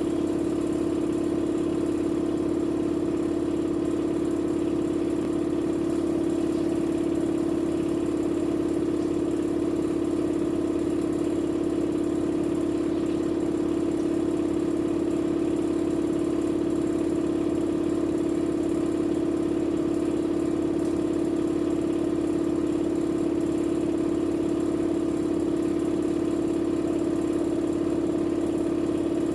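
Electrolux washing machine running with a steady motor hum at one unchanging pitch.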